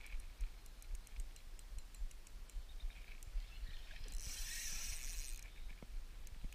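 Shimano Stradic spinning reel being cranked to retrieve a lure, with light ticking from the reel, then a brief hiss of line from about four seconds in.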